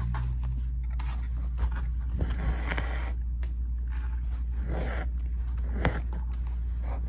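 An embroidery needle and double strand of thread drawn through fabric by hand, a rasping pull heard a few times.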